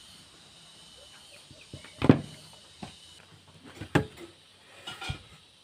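A few sharp knocks and clicks as a metal router bit stacked with washers is handled and set down on a plywood workbench. The loudest knock comes about two seconds in and another about four seconds in, with smaller clicks between and after.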